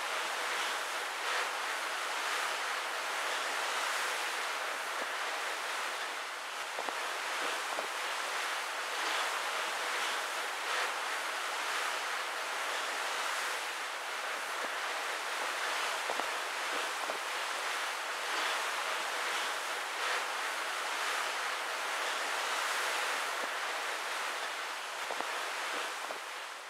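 Steady rush of wind and sea waves on open water, with wind on the microphone; it fades out near the end.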